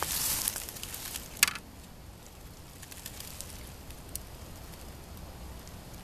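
A metal fork set down on a plastic cutting board, one sharp clack about a second and a half in, after a brief rustle.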